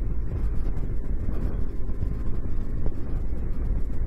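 Triumph Tiger 1200 motorcycle running at a steady cruising speed, its engine rumble mixed with wind and road noise on the bike-mounted microphone.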